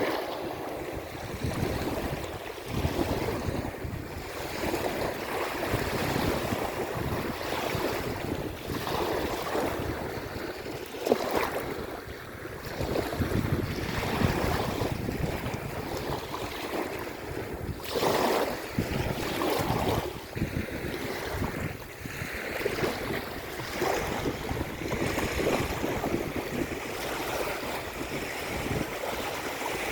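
Waves breaking and washing in with foam on the shore, surging every second or two, with wind gusting over the microphone.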